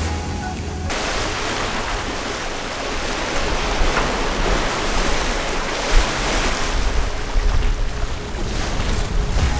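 Wind and waves rushing around a sailboat under way in a choppy sea, a loud steady noise with wind buffeting the microphone and a brief slap near the middle. Background music stops about a second in.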